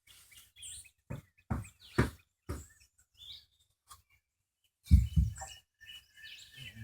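A few sharp knocks, then a heavier thump about five seconds in, with birds chirping faintly in the background.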